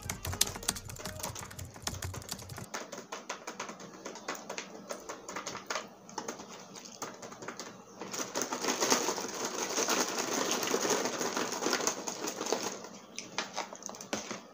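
Plastic Oishi Pillows snack bag crinkled and squeezed close to the microphone: a dense run of crackling clicks, getting louder and busier about eight seconds in and thinning out shortly before the end.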